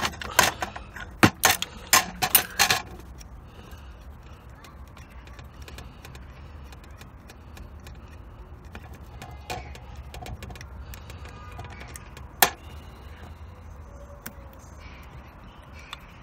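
Metal hand tools and starter-motor parts clinking and clattering: a quick run of sharp metallic clanks in the first three seconds, then quieter clicks and one more sharp clank about twelve seconds in.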